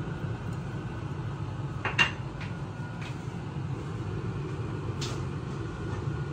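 Small knocks and clicks of dishes being handled while plating, the loudest a sharp knock about two seconds in, with fainter clicks near three and five seconds, over a steady low hum.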